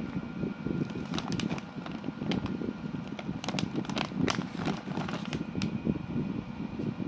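Clear plastic bag crinkling and crackling in irregular bursts as a hand squeezes and turns it, over a steady low rumble.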